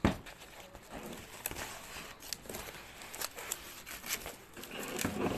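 Clear plastic wrapping crinkling and crackling in the hands as it is pulled off a book, with a sharp knock at the very start.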